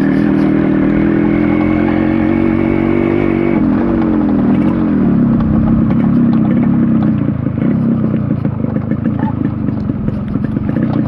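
Yamaha RX100's two-stroke single-cylinder engine under way at steady revs. About four seconds in its note falls as the bike slows, and it carries on at lower, rougher revs.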